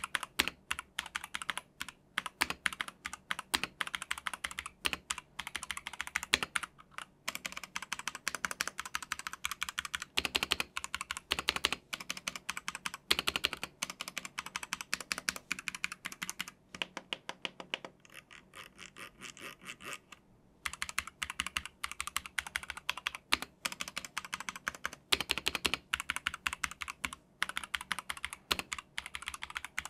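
Typing test on a Zifriend ZA68 Pro wireless mechanical keyboard with factory-lubed linear TTC switches: fast, continuous key strokes, softer and sparser for a few seconds past the middle.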